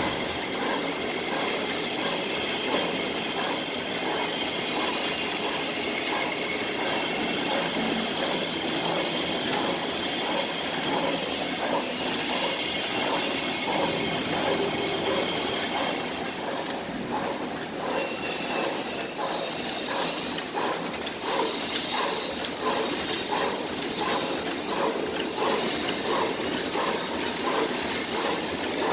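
Rolling bag making machine running: a steady mechanical clatter of rollers and plastic film feeding through, with a regular knock about twice a second in the second half.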